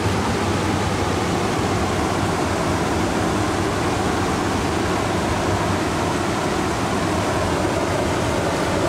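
Steady rush of river water pouring over a weir spillway.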